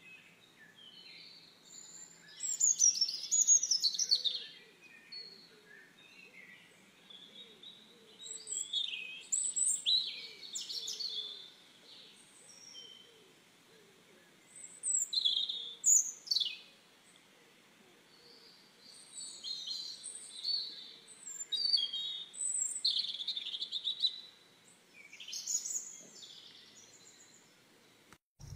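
Chicks peeping in scattered bursts of short, high cheeps, many falling in pitch, with quiet gaps between the bursts.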